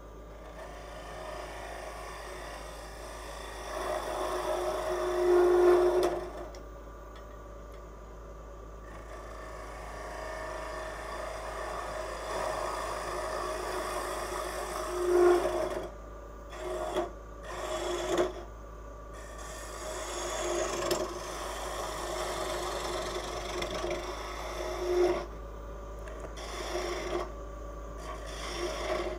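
Half-inch bowl gouge hollowing a spinning wooden box blank on a lathe: a continuous scraping cut made in repeated passes with short breaks, the loudest cuts about 5, 15 and 25 seconds in.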